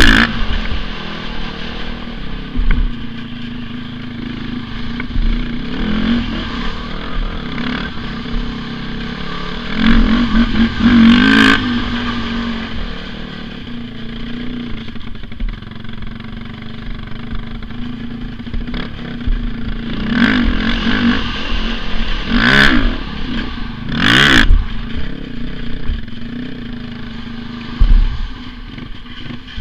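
Honda TRX400EX ATV's single-cylinder four-stroke engine running as it is ridden, with the throttle blipped into several sharp revs that rise and fall. A low thump comes near the end.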